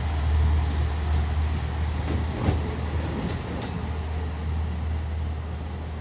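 KiHa 54 diesel railcar running with a steady low engine rumble and a few wheel clicks over rail joints, fading slowly.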